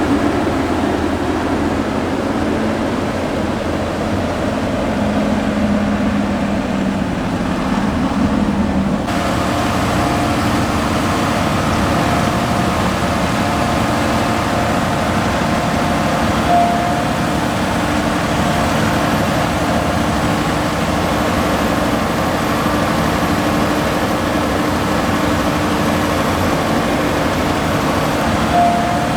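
Large diesel farm machinery at a corn-silage harvest running steadily. About nine seconds in the sound changes abruptly to a steady engine drone with a faint whine over it.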